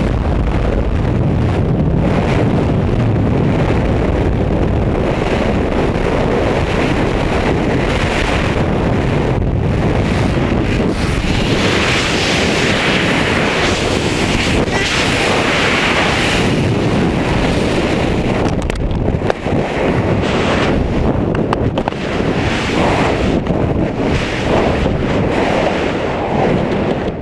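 Freefall wind rushing over a helmet camera's microphone: a loud, steady roar of wind buffeting the mic, growing uneven in the last third.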